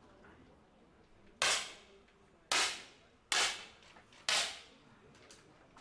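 10 m air pistols firing in a final: four sharp pops, roughly a second apart, each with a short reverberant tail, one competition shot from each of several shooters on the line.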